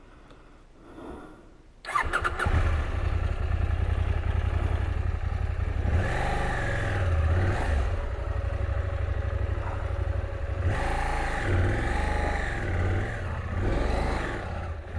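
KTM 790 Adventure's parallel-twin engine starting about two seconds in, then running with the revs rising and falling a few times.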